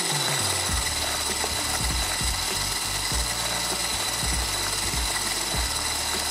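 Electric hand mixer (beater) running steadily with a high motor whine, beating a cream, milk and Nutella ice-cream mixture.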